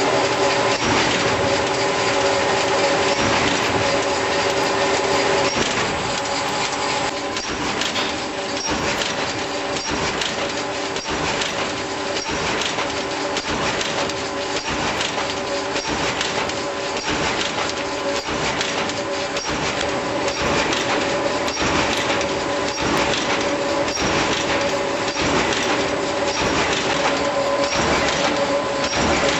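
IBIS Smart Binder booklet-making line fed by an Océ 6250 printer, running: a steady mechanical hum with a few held tones, and a regular clatter about once a second as sheets and booklets go through.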